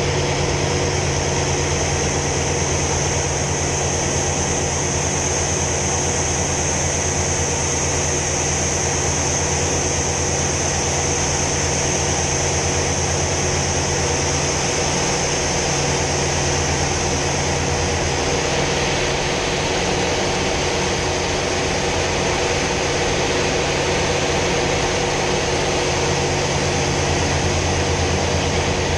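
Hawker Sea Fury T20's radial piston engine running steadily in flight, heard from inside the cockpit as a loud, even drone with a high rushing hiss of airflow. The hiss eases a little about two-thirds of the way through.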